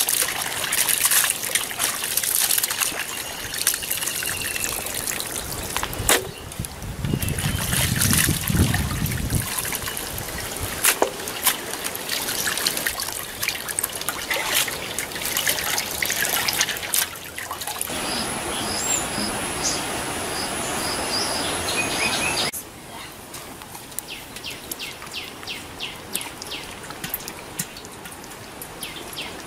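Hands washing raw chicken pieces in a metal basin of water: water splashing and trickling in several short takes, turning quieter near the end.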